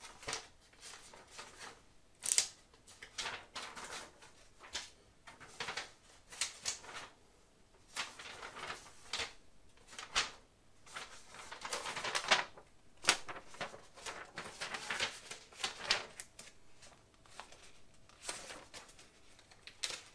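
Paper instruction booklet being handled and its pages turned: irregular crisp rustles and crackles, the loudest about two seconds in and again around twelve seconds in.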